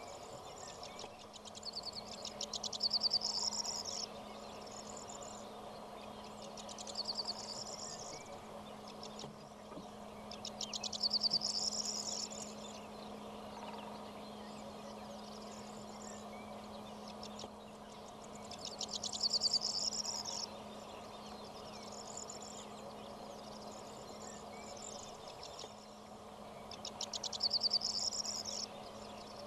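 A songbird sings a short phrase of rapid, trilled high notes, about two seconds long and repeated roughly every eight seconds, with shorter high notes in between, over a steady background chirring of insects and a low hum.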